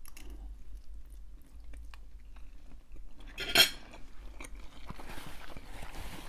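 Eating sounds: small clicks of a utensil against a food container and chewing, with one short, louder breathy sound about three and a half seconds in.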